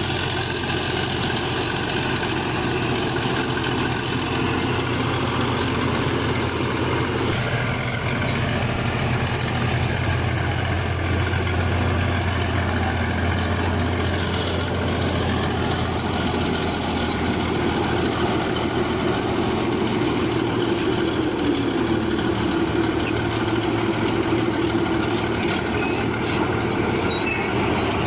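Bulldozer's diesel engine running steadily under a continuous mechanical noise.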